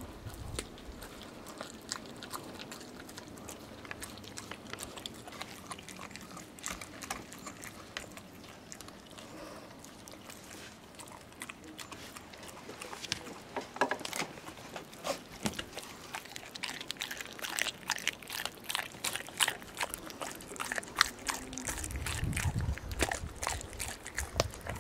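Landseer Newfoundland puppy chewing and crunching a raw chicken leg, bone and all, with wet gnawing and many sharp crunches. The crunches come thicker and louder in the second half.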